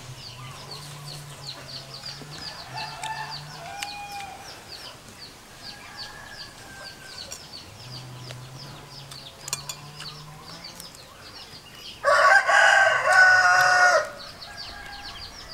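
A rooster crows once, loud, for about two seconds near the end. Softer short calls come earlier, over a fast, even ticking chirp in the background.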